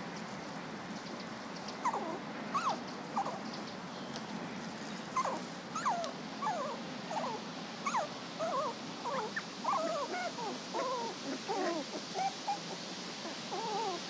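Puppies whimpering in short, high, wavering cries, a few at first and then coming thick and fast from about five seconds in.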